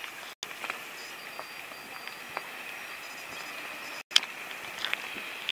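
Small waves lapping against a boat's hull, with scattered light ticks and splashes over a steady hiss; the sound drops out briefly twice.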